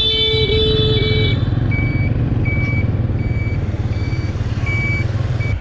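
Motor scooter running along a city street, a steady low engine and road rumble. A horn sounds for about a second at the start, and a short high electronic beep repeats about once every 0.75 s throughout.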